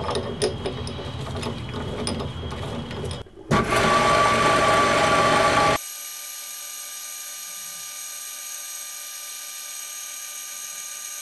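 Metal lathe at work on brass rod stock: a few seconds of clattering and clicks, a louder stretch a little after the middle, then the lathe running steadily with the chuck spinning, a smooth even whine with no bass.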